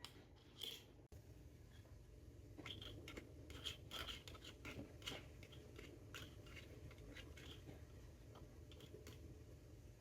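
Faint handling of small toy pieces: a run of light clicks and scratches, busiest in the middle.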